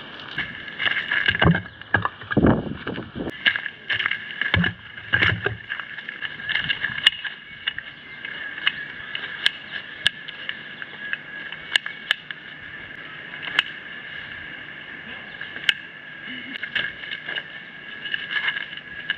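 Firewood logs thudding as they are set down on a pile, then sharp clicks as the metal poles of a folding camp chair are snapped together and the frame is opened. A steady high-pitched drone runs underneath.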